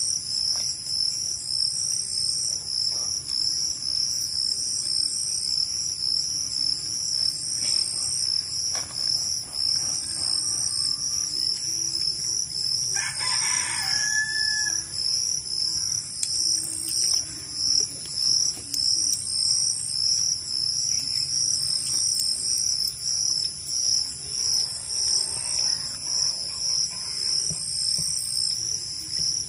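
Crickets chirping steadily in a dense, pulsing chorus, with a higher insect trill switching on and off every couple of seconds. A rooster crows once, about 13 seconds in.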